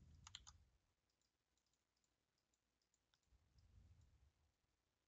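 Near silence with faint, scattered computer keyboard and mouse clicks, a small cluster about half a second in, and two soft low bumps.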